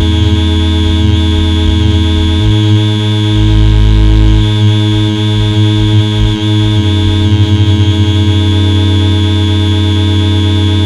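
Loud experimental electronic noise drone: many steady held tones with a hissing, whistling band up high over a heavy low bass throb. The bass shifts pitch about two and a half seconds in and again near seven seconds, pulsing quickly for a second or so after the second change.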